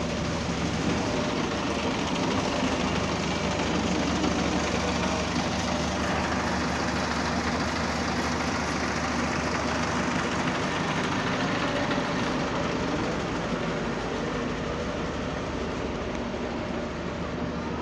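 Double-decker bus diesel engine idling steadily, with a weird vibration running through its drone.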